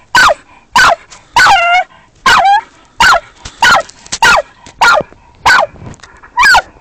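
Earth dog barking steadily at a badger it holds at bay underground: about ten sharp barks at an even pace, each dropping in pitch, with two longer, drawn-out ones near the start.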